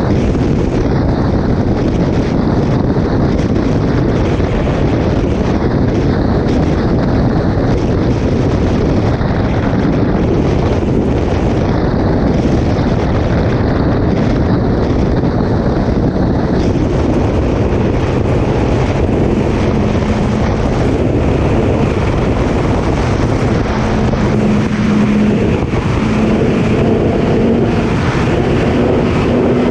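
Heavy wind buffeting on the microphone from riding a Suzuki Hayabusa at speed. From about two-thirds of the way through, the bike's inline-four engine note rises in pitch as it accelerates.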